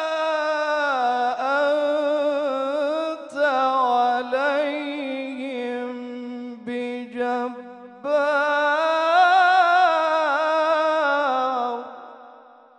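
A man's voice reciting the Quran in the melodic mujawwad style, holding long ornamented notes with a wavering pitch. It turns quieter and broken about six to eight seconds in, then a last long phrase fades out near the end.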